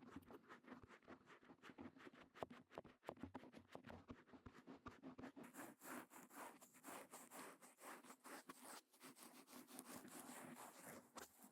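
Faint, rapid scratching and clicking strokes of an ear-cleaning tool working at the ear of a KU100 binaural dummy head, with a brighter hiss joining about halfway through.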